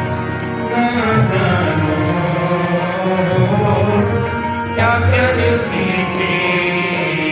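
Sikh kirtan music: tabla beating under steady held instrumental notes.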